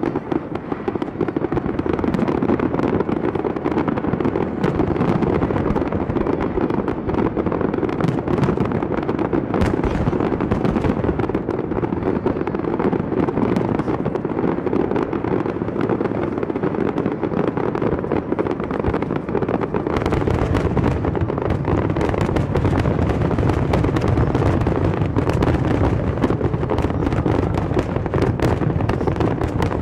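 Fireworks display: a dense, continuous barrage of shells crackling and popping, many at once. About two-thirds of the way through it gets heavier, with deeper booms and more sharp cracks.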